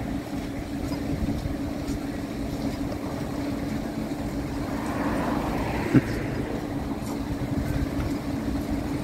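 Newcastle light rail tram (CAF Urbos 100) standing at a stop, giving off a low steady hum. A single sharp click about six seconds in.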